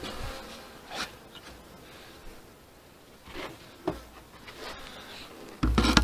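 Rustling of a cloth cover being spread over a beehive's frames, with a few light knocks, then a dull thump near the end as the hive lid is set down on top.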